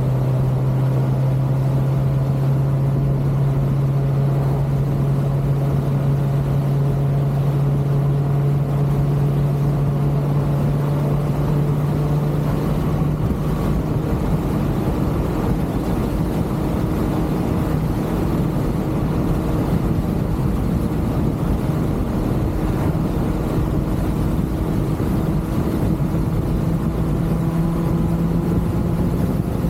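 Kawasaki ZX-6R inline-four motorcycle engine running at a steady cruising note under way; its pitch drops about halfway through, then climbs slowly toward the end.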